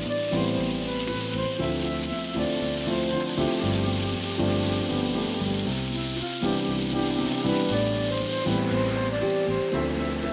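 Background music of steady melodic notes over an even sizzling hiss of food frying in a pan; the hiss thins about eight and a half seconds in.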